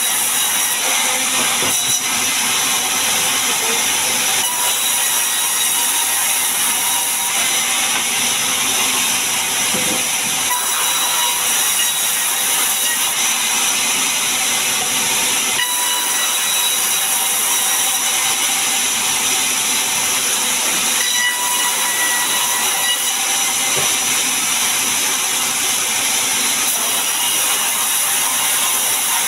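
Large sawmill band saw cutting a mahogany log into long planks: a loud, steady, high-pitched hiss and whine of the blade running through the wood.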